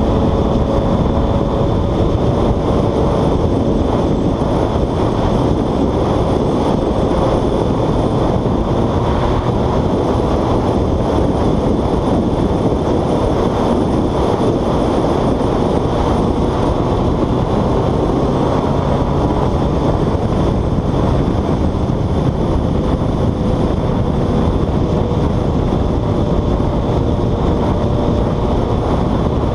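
Motorcycle cruising at steady highway speed: loud wind rush on a helmet-mounted camera with the engine's faint steady hum beneath, its pitch drifting only slightly.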